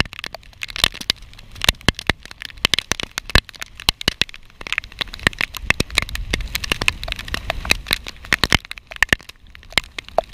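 Raindrops striking the action camera's housing, a dense run of sharp, irregular clicks, several a second.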